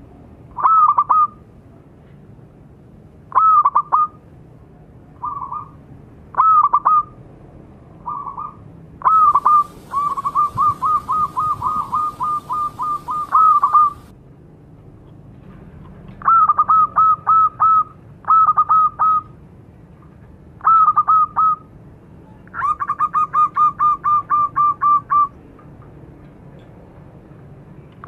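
Local zebra dove (perkutut) with a small voice cooing: repeated short phrases of a few clipped notes with pauses between them, and two long runs of rapid notes about nine and twenty-three seconds in.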